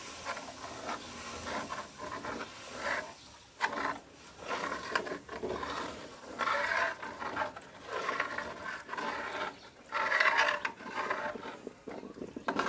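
A metal spatula scraping and stirring in a metal wok in repeated, irregular strokes, working milk into a sauce.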